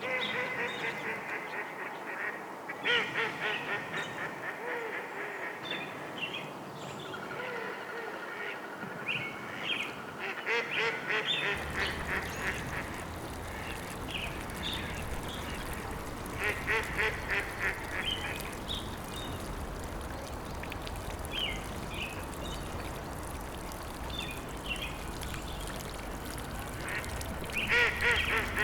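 Ducks quacking in repeated fast bouts a few seconds apart, with scattered shorter bird calls between. About eleven seconds in, a steady rushing background noise starts underneath.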